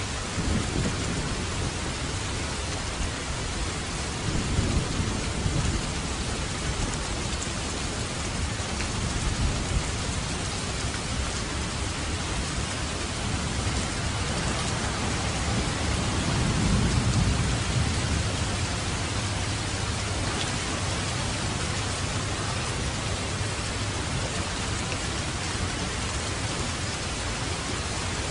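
Steady rain falling on a surface, with low rumbles of thunder swelling up about four seconds in and again around the middle.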